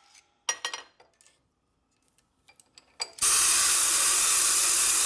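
Compressed-air blow gun hissing as grit is blown out of the engine. After a quiet stretch with a few small clicks and knocks, a loud steady hiss starts about three seconds in.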